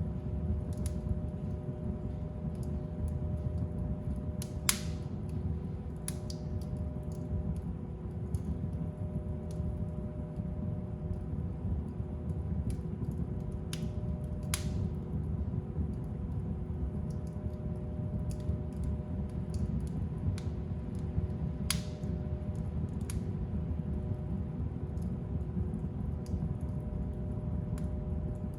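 Fire burning in a fireplace: a steady low rumble with scattered sharp crackles and pops, the loudest pops about 5 s and 22 s in.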